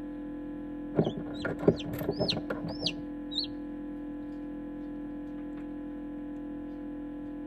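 Newly hatched chicken chick peeping: about six short, high peeps that rise and fall, mixed with a few light knocks, between one and three and a half seconds in, over a steady hum.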